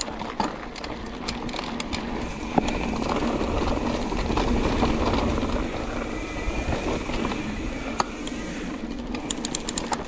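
Mountain bike riding: knobby tyres rolling over gravel and then dirt singletrack, with wind buffeting the microphone and the bike rattling and clicking over bumps.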